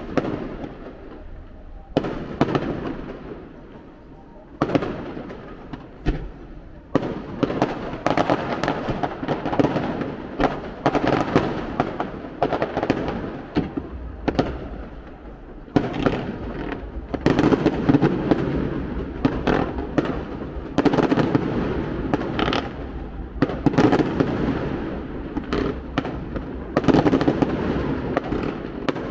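Fireworks display: repeated shell bursts and crackling. The bangs are spaced out at first and come thick and fast from about seven seconds in.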